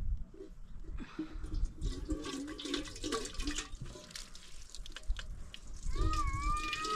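Water running from the tap of a plastic water tank into a kettle, splashing into it as it fills. About six seconds in, a short pitched call or voice sounds over the running water.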